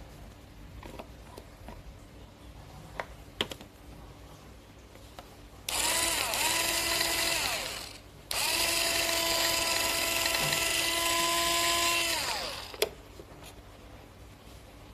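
Cordless mini electric garlic chopper's small motor and blade running with an empty bowl, twice: a run of about two seconds, then after a short pause a longer run of about four seconds, each spinning up to a steady high whine and winding down. A few sharp plastic clicks from the lid and housing come before and just after the runs.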